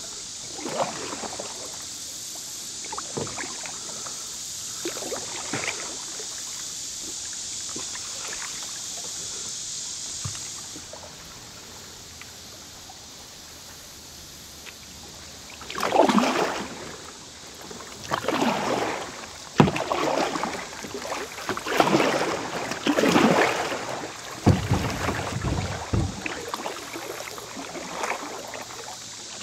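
Kayak paddle strokes dipping and splashing in shallow river water, with water running off the blades. They are louder and come about every second or two from about halfway through. A steady hiss cuts off about ten seconds in, and a couple of dull low knocks fall near the end.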